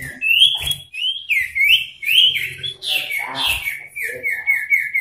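Male common iora singing: a series of loud whistled notes sliding up and down, then a rapid trill of repeated notes, about five a second, that falls slightly in pitch. This is the heated male song used to provoke a rival.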